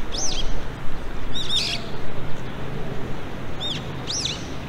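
Songbird calls: short, high, arched chirps in four quick groups, over a steady low background rumble.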